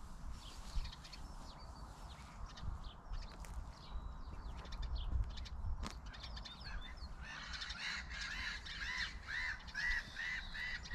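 Birds calling outdoors: faint scattered chirps at first, then from about seven seconds in one bird gives a rapid run of repeated calls, two or three a second, until the end.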